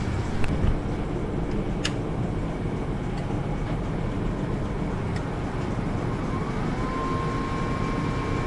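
Lincoln PowerMIG 210 MP MIG welder switched on and starting up: a sharp click about two seconds in over a steady hum, and near the end a tone that glides up and then holds steady.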